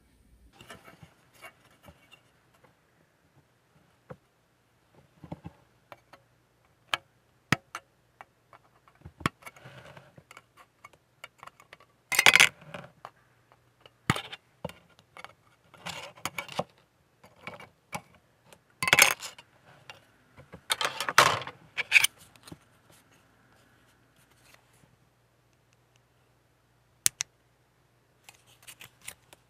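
Hobby tools and small plastic model parts handled at a workbench: scattered sharp clicks and taps, with louder short bursts about 12, 19 and 21 seconds in, then a quiet stretch before a few last clicks. A faint low hum runs underneath.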